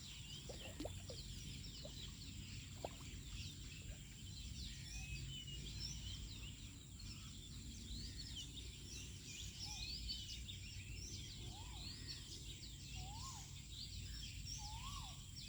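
Outdoor bird chorus: many small birds chirping and twittering, with a few clear up-and-down whistled notes in the second half, over a steady thin high tone and a low rumble.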